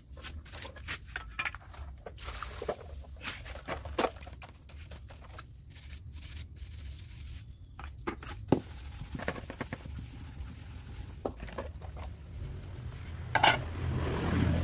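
Dishes being washed by hand in plastic basins: scattered clinks and knocks of metal pans and bowls, with splashing water. A louder knock comes near the end.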